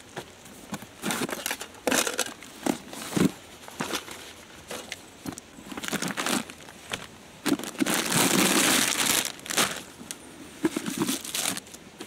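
Gear being rummaged out of canvas motorcycle bags by hand: irregular rustling, crinkling of plastic snack packets and small knocks, with one longer rustle about two thirds of the way in.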